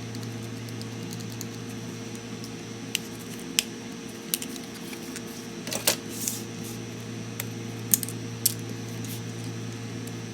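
Scattered small metallic clicks and taps from a Torx T5 screwdriver and tiny laptop screws being handled, about eight of them, over a steady low hum.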